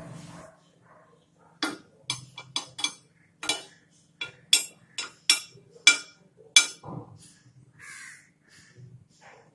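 A steel spoon clinking against a non-stick paniyaram pan as ghee is spooned into its cups: about a dozen sharp, short metallic clinks, roughly two a second, each ringing briefly.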